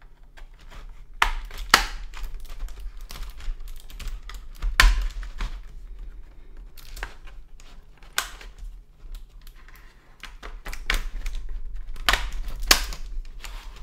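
A plastic pry tool worked around the seam of a Logitech MX Mechanical Mini's plastic bottom case: irregular sharp plastic clicks and snaps, a few much louder than the rest, over dull knocks and rubbing of the keyboard being handled on the mat.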